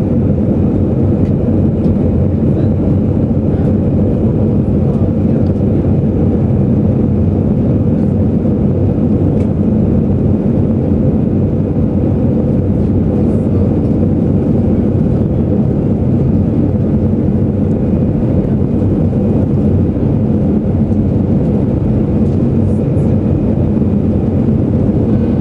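Steady jet engine and airflow noise inside a jet airliner's cabin during the climb after takeoff, loud and unchanging throughout.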